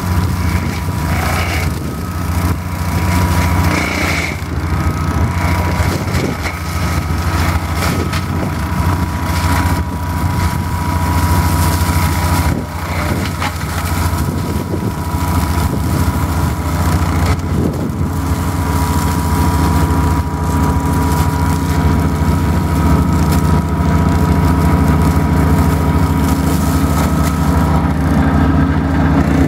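Compact tractor engine running steadily under load, driving a front-mounted flail mower with a steady whine, and irregular cracking as the flails shred dry reeds and scrub.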